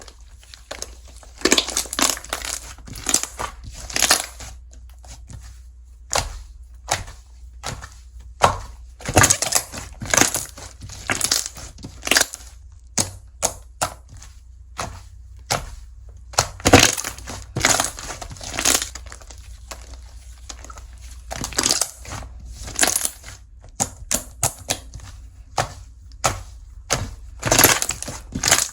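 Slime being squeezed, pressed and stretched by hand, giving irregular crackling, popping squishes, some in quick clusters.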